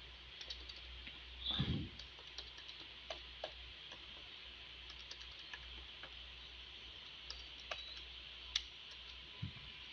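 Faint, scattered key clicks as a figure is worked out and keyed in, over a steady low hiss. A short hum of voice about a second and a half in.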